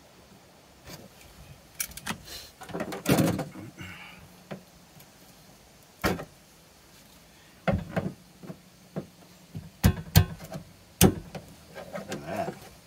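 Utility knife blade scraping and chipping tar-like sound-deadening material off a vehicle's sheet-metal floor: irregular scrapes and sharp taps of the blade on the metal, with a busier patch of scraping about three seconds in and single sharp clicks scattered through the rest.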